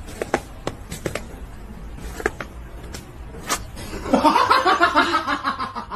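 A person laughing in quick repeated bursts, starting about four seconds in. Before it there are a few scattered soft knocks.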